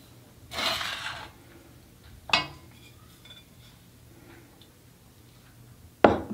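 Ceramic plates handled on a wooden counter: a short scrape about half a second in, a sharp ringing clink a couple of seconds later, and a louder knock near the end as a plate is set down.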